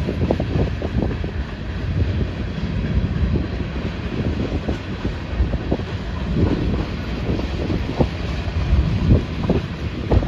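Cars of a Union Pacific mixed freight train rolling past: a steady low rumble with irregular clicks and knocks from the steel wheels on the rails.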